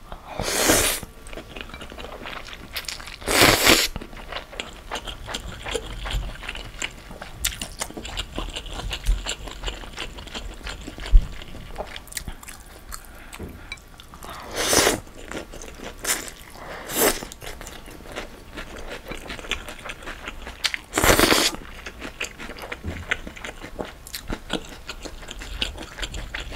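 Close-miked eating: crunching and chewing of fresh lettuce and slurping of bún chả rice vermicelli noodles. Four louder slurps stand out, spread through, with steady small crunches and mouth clicks between.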